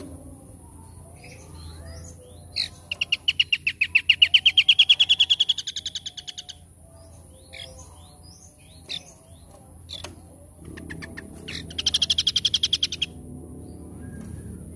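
A songbird singing two fast trills of rapidly repeated notes. The first trill is long and rises in pitch; the second, near the end, is shorter and level. Scattered short chirps fall between them over a steady high-pitched whine.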